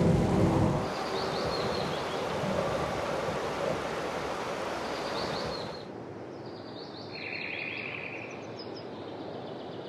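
Nature ambience sound effects with birds chirping. A low rumble ends about a second in, leaving a steady hiss with short falling chirps. About six seconds in the hiss drops away to a quieter bed with more bird chirps and a brief trill.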